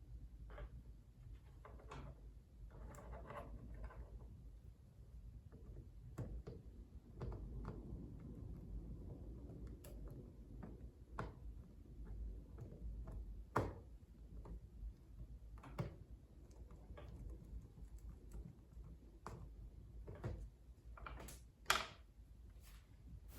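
Faint hand-work on an electrical wiring board: scattered clicks, taps and rustles of wire and tools being handled and fastened at terminal blocks, with two sharper clicks about 13 and 21 seconds in.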